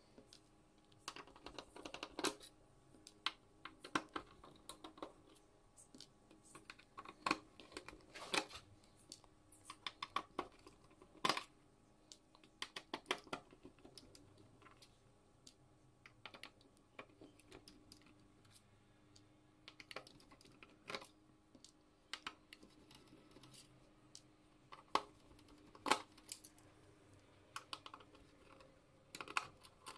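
Irregular small clicks and ticks of a screwdriver and small screws being worked out of a PlayStation 4 Pro's plastic and metal casing, with a few louder taps.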